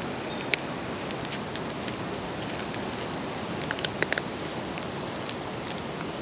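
A cat crunching dry kibble from a plastic bowl: scattered sharp crunches and clicks, a quick cluster about four seconds in, over a steady outdoor hiss.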